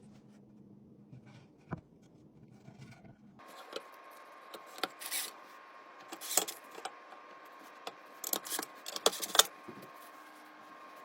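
Screws and wooden shelf pieces being handled and fitted together during assembly: scattered clicks, taps and knocks. A faint steady hum comes in after about three seconds.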